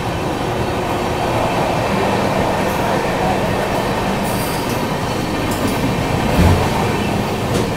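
Passenger express train running at speed, heard from on board: a steady rumble of wheels on rail mixed with rushing air, with one low thump about six and a half seconds in.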